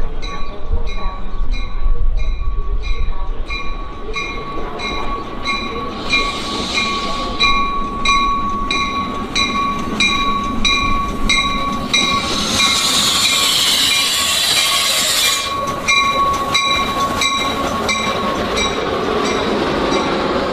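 Metra double-deck commuter train arriving at a station platform, with a bell ringing about twice a second and a steady high whine. A loud hiss comes in for a few seconds around the middle and cuts off suddenly as the cars draw alongside.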